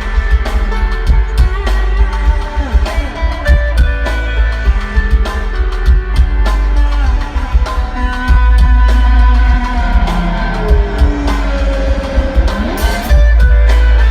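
Live band music: guitar over drums and a heavy bass, with notes sliding up and down near the end.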